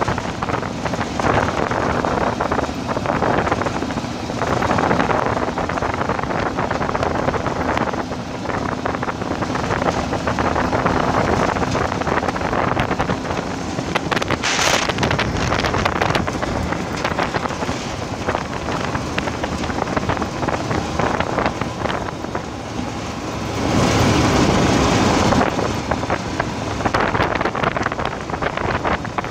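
Off-road vehicle driving along a gravel road: steady wind buffeting on the microphone over the rumble of the tyres and engine. A short sharp hiss about halfway through, and a louder rush of wind noise lasting about a second and a half near the end.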